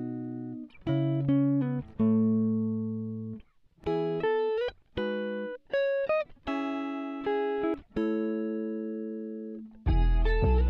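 Background music: a plucked-string melody of single notes and chords, each ringing out and fading, several with a short upward slide in pitch. Near the end a fuller track with a heavy bass comes in.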